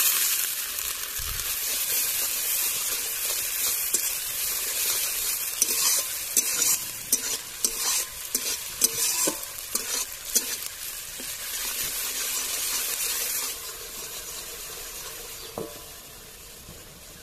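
Fried onion with garlic and ginger paste sizzling in a steel kadai after a little water is added, while a steel spatula stirs it with many scrapes and taps against the pan. The sizzle eases off over the last few seconds.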